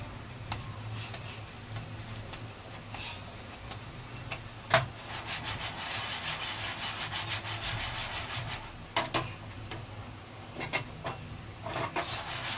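Coated frying pan being swirled and jiggled on a gas stove's grate as a paratha fries in it, a steady rubbing, scraping sound with a run of quick strokes in the middle. A sharp knock a little under five seconds in.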